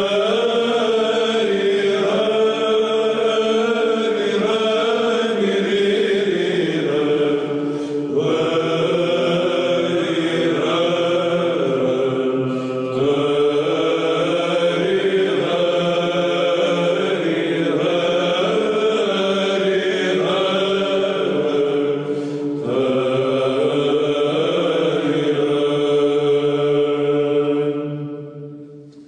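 Background music: Orthodox Byzantine chant, voices singing a slow melody over a steady low held drone note. It fades out near the end.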